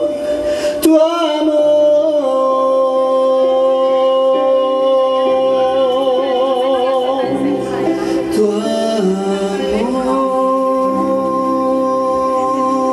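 Man singing a Christian worship song into a microphone, holding long notes with vibrato over slow, sustained instrumental accompaniment.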